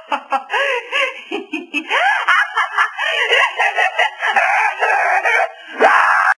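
A young woman's high-pitched shrieking and squawking: a rapid run of wild cries that swoop up and down in pitch, with a louder outburst near the end.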